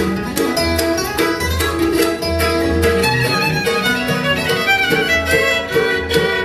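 Bluegrass band playing live: a fiddle over strummed acoustic guitar and a plucked upright bass line.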